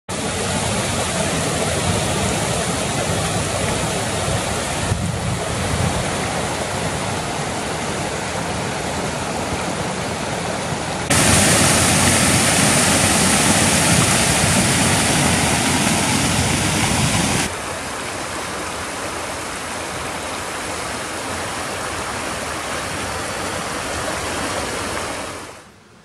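Small brook waterfalls pouring over rock ledges, swollen with spring run-off: a steady rushing of water. It jumps abruptly in loudness a few times, is loudest for several seconds in the middle, and fades out near the end.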